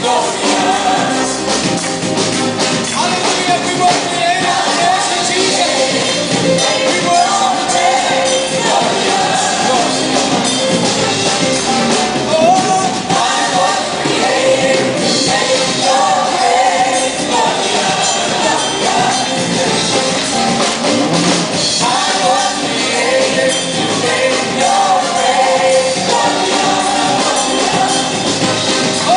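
Worship song with a full band and singing.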